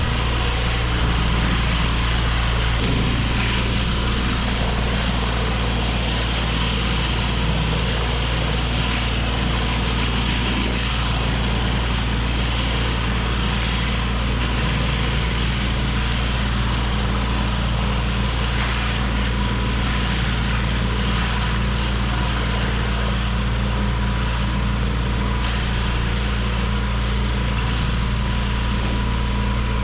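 Pressure washer engine running steadily under load, with the even hiss of high-pressure water spraying onto sandstone paving.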